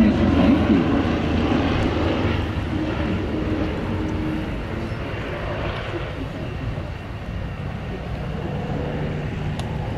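Propeller engines of an Antonov An-2 biplane, with its nine-cylinder radial, and three Aero AT-3 light planes flying in close formation. The sound is loudest at the start as the formation passes and fades away over the next several seconds.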